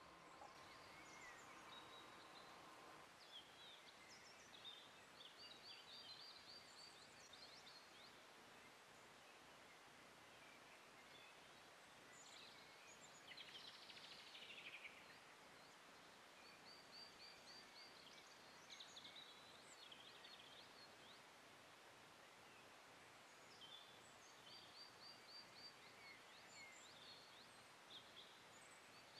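Faint outdoor birdsong: scattered chirps and short, quickly repeated high trills from small birds, with one longer falling phrase about halfway through, over a quiet background hiss.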